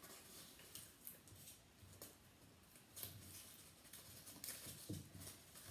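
Near silence with a few faint, scattered rustles and taps of a paper craft hat being curled and fitted by hand.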